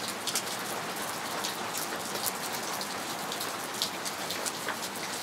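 Steady rain falling, a constant hiss with many separate sharp drops heard over it.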